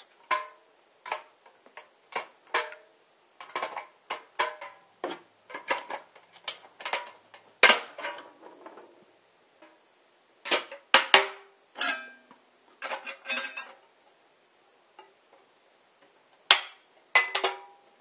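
Pliers snapping through the thin steel between a ring of drilled holes in a steel food can: a series of sharp, irregular metallic clicks and snaps, some followed by a short ring from the can. There is a pause of about two seconds near the end before a last few snaps.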